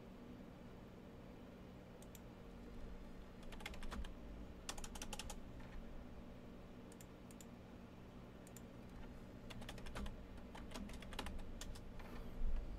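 Computer keyboard typing in several short bursts of key clicks with pauses between them, over a faint steady hum.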